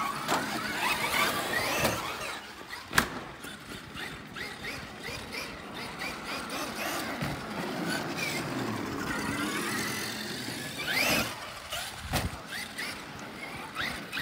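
Electric motors of radio-controlled trucks whining, gliding up and down in pitch as they speed up and slow down. A sharp knock comes about three seconds in.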